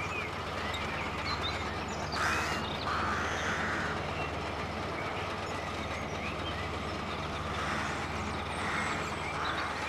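Engine of a small tracked tank built on a Bren gun carrier chassis, running steadily as it drives over rough ground. The track and running-gear noise grows louder about two seconds in and again near the end.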